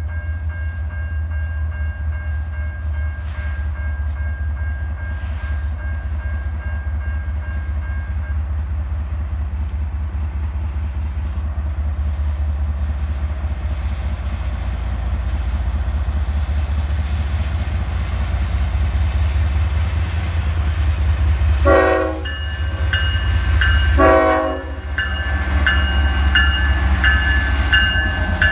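The diesel engines of a CSX GE ES44AH and a Union Pacific EMD SD70M rumbling steadily as they pull a heavy freight train slowly past. About three quarters of the way in, two short horn blasts sound, followed by a bell ringing about one and a half times a second.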